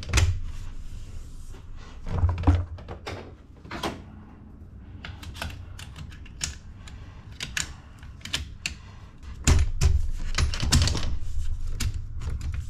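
Hard plastic intake tubing and fittings being handled and pressed into place by hand: a run of irregular clicks, taps and rattles, with heavier thumps at the start, about two seconds in, and again from about nine and a half seconds in.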